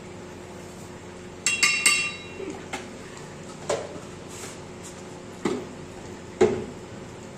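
Kitchen clatter while spices are added to a pot: a few bright, ringing metallic clinks about a second and a half in, followed by several separate sharp knocks as plastic spice containers are handled and set down.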